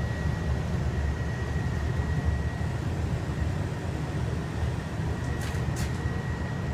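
Corn-burning furnace running: a steady low blower rumble with a faint, steady high-pitched whine over it, and two brief faint clicks near the end.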